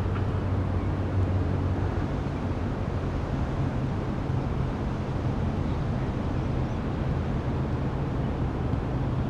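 A steady low engine-like hum with a rushing noise over it, unchanging in level.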